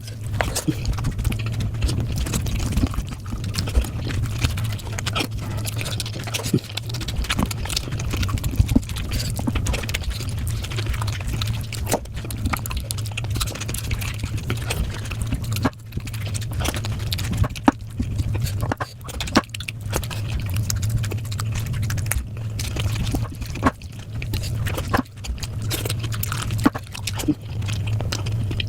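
Close-miked eating: rapid chewing, biting and wet mouth clicks in quick succession, over a steady low hum.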